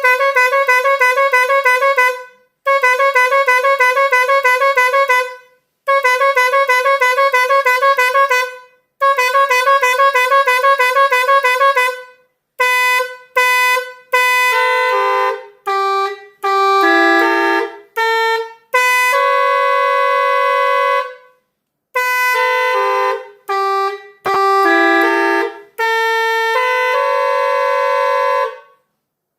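A 12-sound multi-tone truck horn module sounding its tones. First comes a fast warbling tone, blown four times with short breaks. Then comes a run of notes stepping up and down in pitch like a tune.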